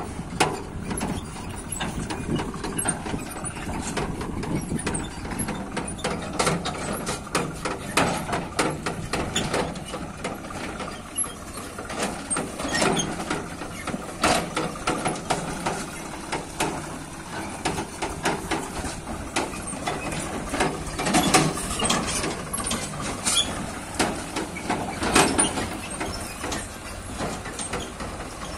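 Steel tractor trolley rattling and clanking as it is towed over a rutted dirt track, a constant run of irregular knocks with louder spells about halfway through and near the end, with the tractor's engine running underneath.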